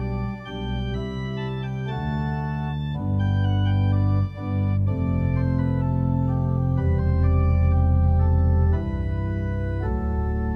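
Organ music: slow, held chords over a strong bass line, the chords changing every second or two.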